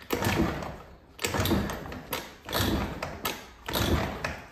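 Honda AF34 moped's two-stroke engine being kick-started about five times, roughly one kick a second: each a short burst of cranking that dies away without the engine firing. The engine will not start.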